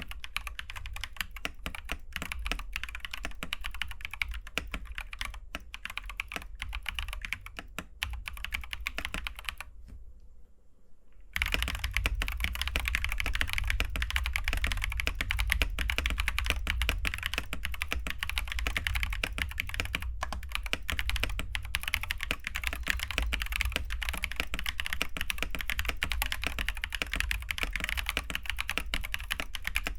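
Fast, continuous typing on a mechanical keyboard with Glorious Panda tactile switches, a dense run of key clacks. It breaks off briefly about a third of the way in, then resumes louder.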